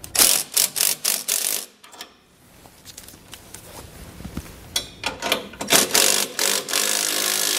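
Cordless power ratchet running nuts down onto a U-bolt and carriage bolts, in a string of short bursts at first and again later, with a longer steady run near the end.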